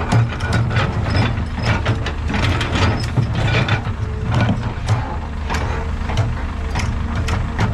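Heavy diesel construction machinery running with a steady low hum, under frequent short metallic clanks and rattles of moving parts.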